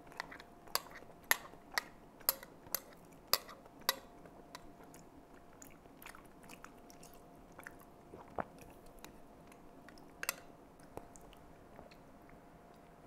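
Eating oatmeal: a metal spoon clicking against a ceramic bowl about twice a second, with quiet chewing. After about four seconds the clicks thin out to a few scattered knocks, two of them louder, as the bowl is handled and put down.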